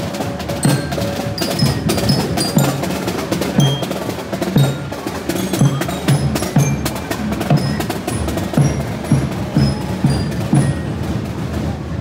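Parade drum band playing: drums beating a steady march rhythm about twice a second, with snare drum rolls and taps over it.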